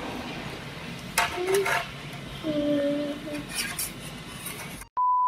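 A metal utensil clinking and scraping against a dish, with a short hummed note from a child in the middle. Near the end the sound cuts out abruptly and a steady, high-pitched edit beep starts.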